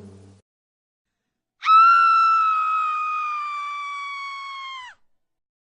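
One long, high-pitched scream lasting about three seconds, held at a nearly steady pitch that sags slightly and drops away as it cuts off.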